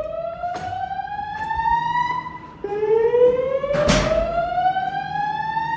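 Fire alarm slow-whoop tone from System Sensor SpectrAlert Classic speaker strobes: two long rising sweeps between the voice evacuation messages. Sharp clicks come between them, the loudest about four seconds in.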